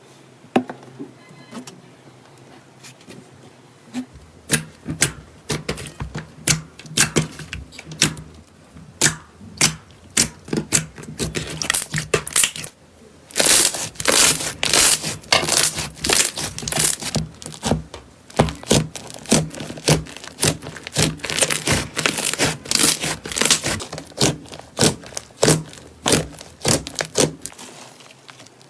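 Slime being squished, pressed and poked by hand, making a fast, irregular run of wet crackles, clicks and pops. It starts sparse and grows denser and louder about halfway through.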